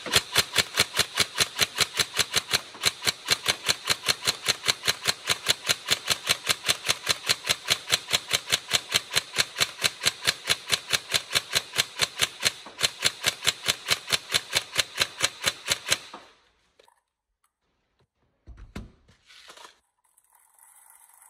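Tokyo Marui 416 NGRS electric airsoft rifle firing a long, evenly spaced string of shots for about sixteen seconds, then stopping. It cycles steadily without jamming. A single thump follows a couple of seconds later.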